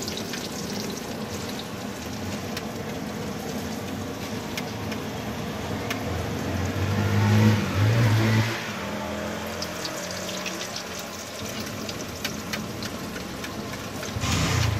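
Chicken-and-lentil shami kebab patties sizzling in oil on a flat griddle. A motorcycle passes close by, loudest about halfway through.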